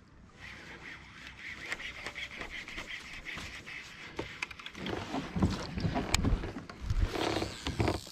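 Water lapping and slapping against a kayak hull, with scattered small clicks and knocks of fishing gear being handled. The knocks grow louder in the second half.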